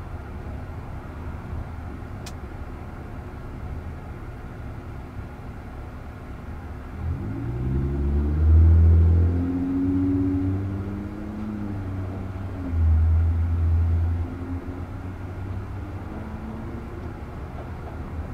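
Low traffic rumble heard from inside a stopped car's cabin. About seven seconds in, a nearby vehicle's engine rises in pitch as it accelerates. It is loudest twice, around eight seconds and again around thirteen, then fades away.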